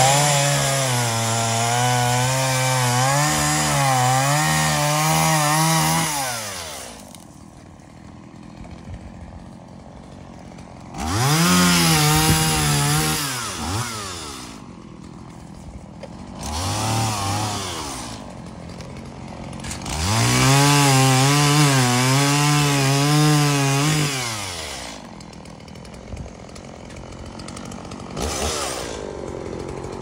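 Two-stroke chainsaw revving to full throttle in several bursts, its pitch wavering as the chain cuts through dead hackberry wood, and falling back to a low idle between cuts. The longest full-throttle runs come at the start and about two-thirds of the way through, with a short blip near the end.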